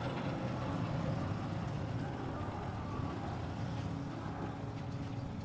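A truck engine running steadily, a low even rumble that starts abruptly at the beginning.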